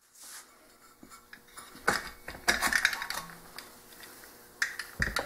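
Metal clinks and knocks of an engine teardown: the finned aluminium cylinder head of a Rotax 503 is worked off its studs and handled. There is a cluster of clatters about two seconds in and more sharp knocks near the end.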